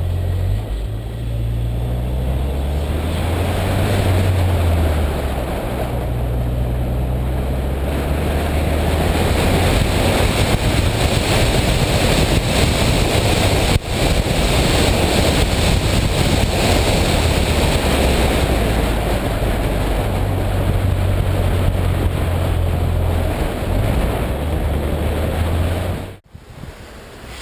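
Smart Fortwo's small three-cylinder engine running on the move, its low hum shifting up and down in pitch, under heavy wind and road noise. The sound cuts off abruptly near the end.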